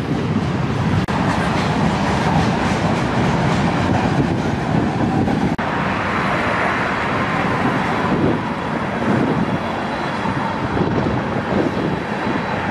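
Freight train of tank cars rolling past with steady, continuous wheel-on-rail noise.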